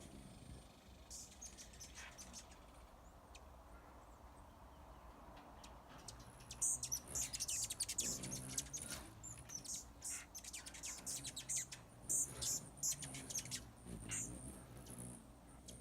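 Hummingbirds giving rapid, high-pitched chips and squeaky chatter, typical of territorial squabbling. The calls come thick from about six seconds in.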